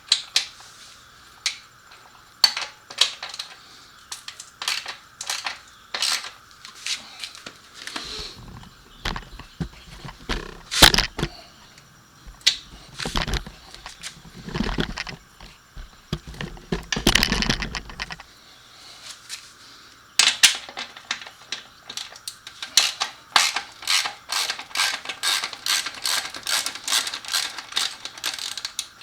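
Socket ratchet clicking in quick runs as a motorcycle muffler's mounting bolt is worked loose, with scattered clinks of tools and metal parts and a few heavier knocks in the middle.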